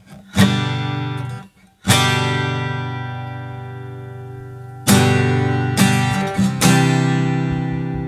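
Acoustic guitar fitted with a bone nut and saddle, strumming chords: about five strums, each chord left to ring and fade, with one cut short about a second and a half in.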